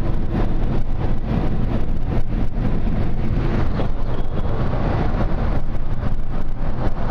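Steady road and engine noise of a car driving in moving traffic.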